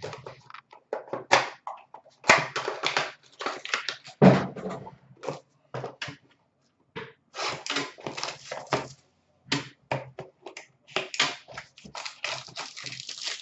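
A cardboard trading card box being handled and opened on a counter: irregular rustling, scraping and light knocks.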